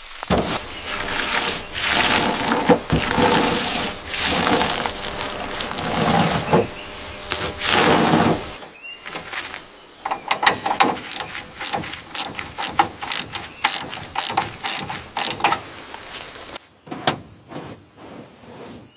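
Mechanical clicking and ratcheting, in cut-together segments: swells of rough noise in the first half, then a run of quick sharp clicks, thinning out near the end.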